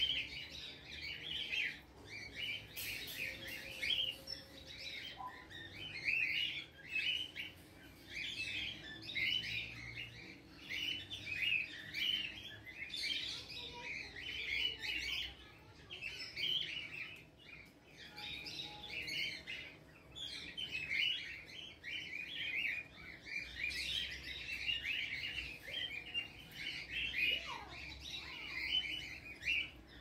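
A chorus of many small birds chirping and twittering without a break, dense short calls overlapping one another.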